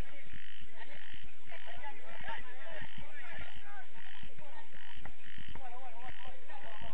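A chorus of frogs croaking in a steady rhythm, about two calls a second, over irregular low thumps.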